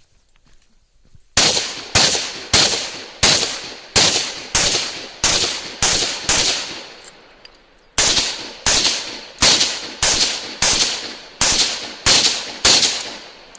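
Rifle fire in two strings of about nine aimed shots each, at about one and a half shots a second, with a pause of about a second and a half between the strings. Each shot ends in a short echoing tail.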